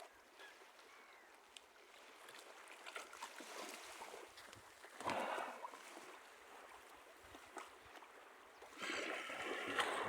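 Small waves on a calm sea lapping at the shore, a faint steady wash with two louder surges, one about halfway through and one near the end.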